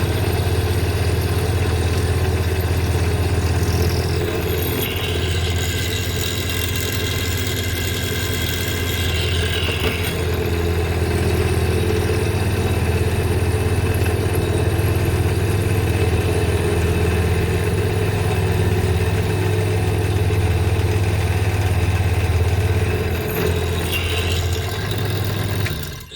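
Electric drill running steadily as it bores into the steel body of an old pipe wrench, with a higher whine of the bit cutting now and then. It winds down and stops at the very end.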